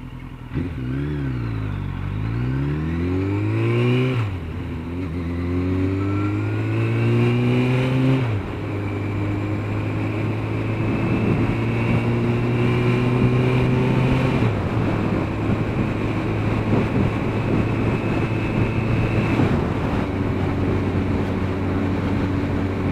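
Motorcycle engine pulling away from a stop. It rises in pitch through the gears, with upshifts about 4, 8 and 14 seconds in, then runs steadily at cruising speed, with wind noise on the bike-mounted microphone.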